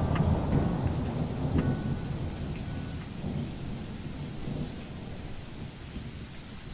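Rain and thunderstorm ambience: steady rain hiss over a low rolling thunder rumble, fading out gradually. A brief high ringing tone sounds about a second and a half in.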